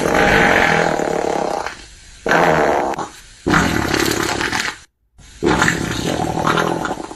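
Fart sound effect: four long, drawn-out fart noises, each lasting about one to two seconds, with short gaps between them.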